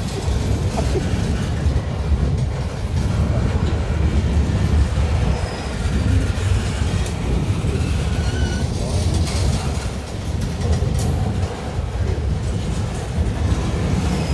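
Freight train of Norfolk Southern gondola cars rolling past: a steady, loud rumble of steel wheels on the rails.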